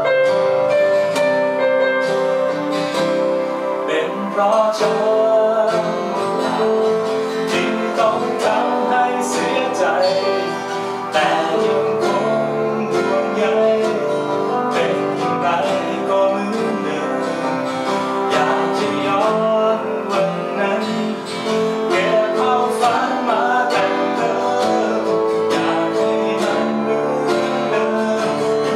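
Live acoustic guitar being strummed, with a man singing and keyboard accompaniment: a two-piece acoustic performance.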